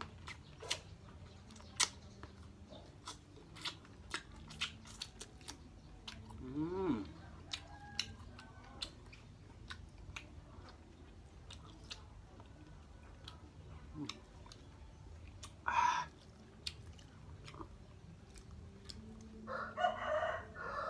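Close-up chewing and biting with wet mouth clicks and crunches, repeated throughout. A short pitched vocal sound comes about seven seconds in, and another louder mouth sound about sixteen seconds in.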